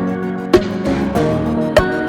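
Background music: plucked, guitar-like notes over a held low tone, with sharp note attacks every half second or so.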